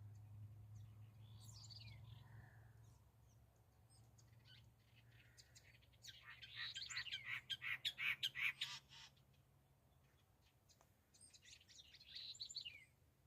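Red-crested cardinal calling and chirping: a downward-sweeping call early, a loud run of quick chirps in the middle, and another sweeping call near the end, over a faint low hum.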